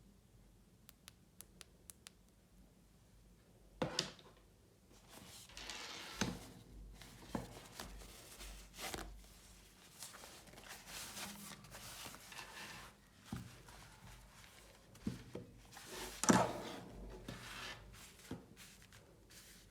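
Headphone packaging being handled and unpacked: a few light clicks, then a knock about four seconds in, a stretch of rustling, and the loudest knock about three quarters of the way through.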